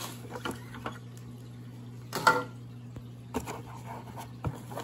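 Plastic filter media trays of a Fluval canister filter being handled, giving scattered light plastic clicks and knocks, with one louder clatter about two seconds in, over a steady low hum.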